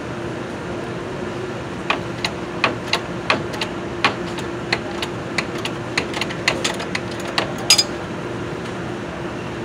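Sharp, irregular metal clicks and clinks from a mechanic's hands and tools working in a car's engine bay. They come roughly twice a second from about two seconds in, with the sharpest clink near the end, over a steady low hum.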